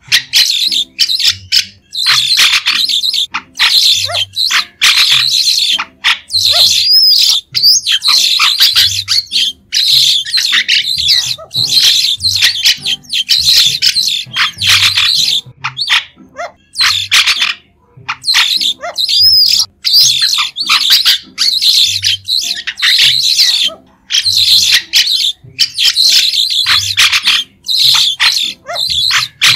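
White-shouldered starling calls: a dense run of short, high-pitched chattering notes in bouts of a second or two, with brief pauses between.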